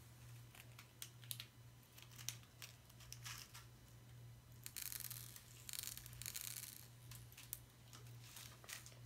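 A small packet of dry Orbeez beads is crinkled and torn open by hand: scattered faint crinkles and clicks, with two longer tearing rasps about five and six seconds in.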